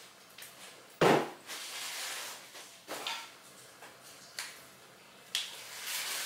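Kitchen handling sounds: a loud clunk about a second in as a glass storage canister is set down on a counter, then rustling and a few lighter knocks.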